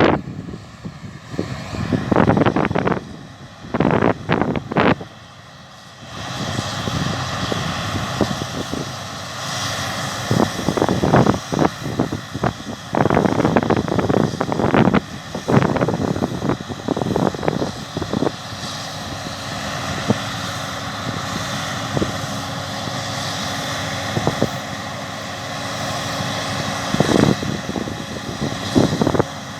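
Combine harvester running while harvesting, a steady drone that grows louder and fuller about six seconds in, with repeated gusts of wind buffeting the microphone.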